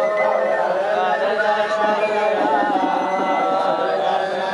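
A crowd of Hasidic men chanting together, many male voices overlapping in a continuous sung prayer.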